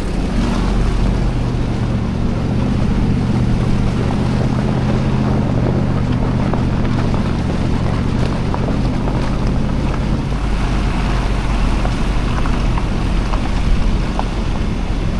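Lexus GX470's V8 engine running steadily while the SUV drives, with a constant low drone, road and wind noise, and a few small knocks and rattles.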